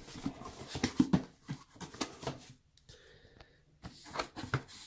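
Cardboard box being set down and opened by hand: scattered knocks, scrapes and rustles of cardboard and packaging, with a short quiet pause near the middle.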